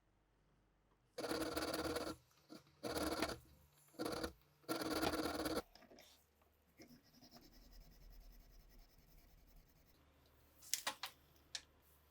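Scraping on metal in four bursts within the first six seconds, followed by faint rubbing and a few sharp clicks near the end.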